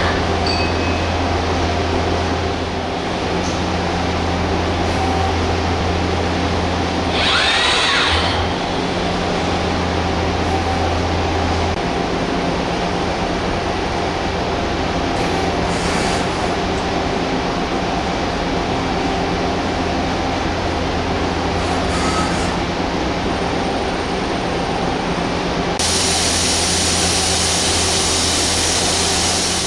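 Okuma LB3000 EXII CNC lathe with its built-in robot arm running: a steady machine hum with motor whine, and a brief whine that rises and falls about seven seconds in. A steady hiss sets in near the end.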